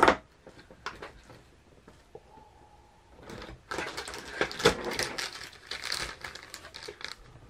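Faint rustling and taps of cardboard, then from about halfway in a clear plastic bag crinkling for a few seconds as it is pulled out of a cardboard advent-calendar compartment.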